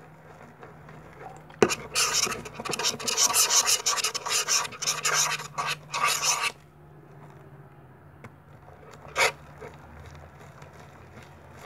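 Slime being mixed in a container: quick, irregular scraping and rubbing strokes for about five seconds, starting with a sharp click, then one more short scrape near the end.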